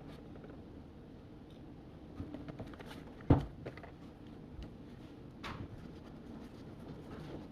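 Quiet study café room ambience with scattered small clicks and rustles, and one sharp knock a little after three seconds in.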